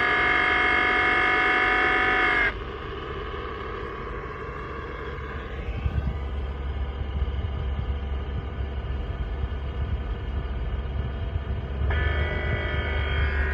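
Defective AC compressor on a 2020 Honda Civic, heard through a noise catcher clamped directly to it with the clutch engaged: a steady whine of several pitches that cuts off suddenly about two and a half seconds in. After that comes a rougher, lower running noise with a rumble from about six seconds, and the whine returns near the end.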